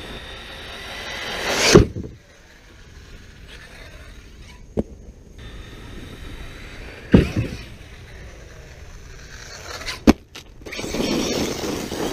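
Arrma Talion 6S RC car's electric motor and tyres building up, then a loud hard landing about two seconds in. Another loud landing comes past the halfway mark and a sharp knock near ten seconds, with the motor and tyres running up again near the end.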